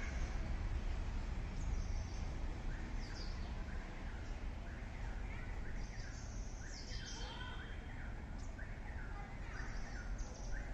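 Outdoor ambience: small birds chirping again and again over a steady low rumble.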